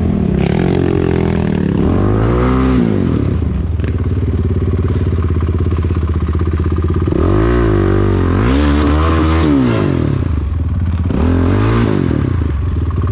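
Honda ATV engine being ridden hard on a dirt trail, its revs climbing and dropping several times as the throttle is worked.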